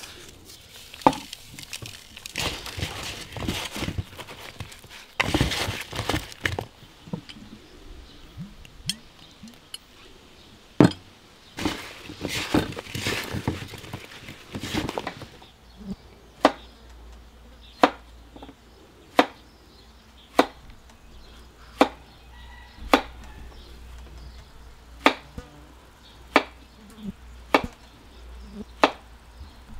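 Hands tossing salted eggplant slices in a wooden bowl: irregular rustling with a few knocks. About halfway through, a chef's knife starts slicing a zucchini on a wooden cutting board, a sharp chop about every second and a quarter.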